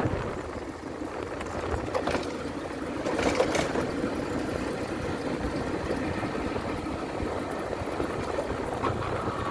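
Single-cylinder 150 cc motorcycle engine running steadily while being ridden along a dirt road, with two brief rushes of noise about two and three and a half seconds in.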